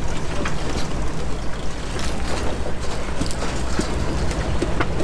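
Engine of a rock-crawling pickup running at low speed as it climbs over a boulder, a steady low rumble with scattered clicks and knocks.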